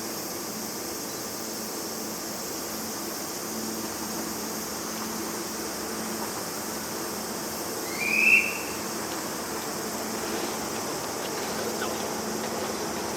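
Steady low hum and hiss inside a locomotive-hauled passenger coach, with one short high chirp that rises then falls about eight seconds in.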